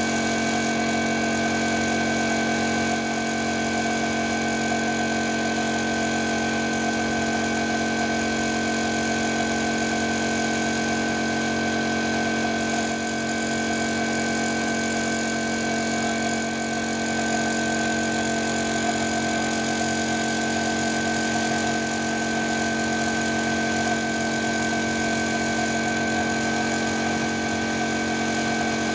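Air compressor motor running steadily under the continuous air hiss of a spray gun spraying PU sealer.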